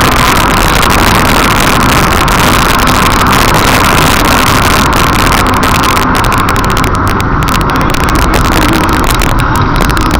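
Steady car road and engine noise at highway speed, heard from inside the car through a dashcam microphone, loud and rough with frequent crackles.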